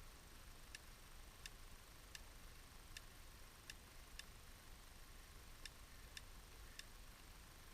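Faint crackling of a burning wood bonfire: about nine sharp, separate pops at uneven spacing, over a low steady rumble.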